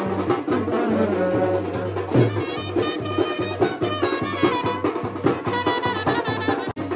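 Indian brass band playing: trumpets and larger brass horns carry a melody over a steady drum beat.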